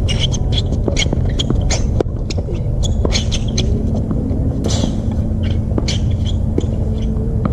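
A tennis rally on a hard court: sharp pops of racket strings striking the ball and quick footsteps and shoe scuffs on the court surface, with one longer scrape a little before the five-second mark. A steady low rumble runs underneath.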